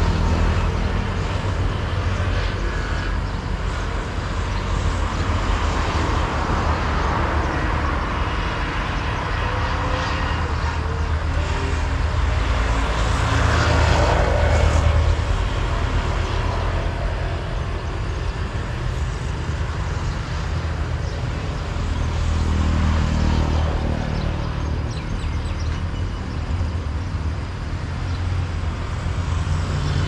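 Steady low rumble with a broad hiss: outdoor background noise, with a few faint short high notes near the end.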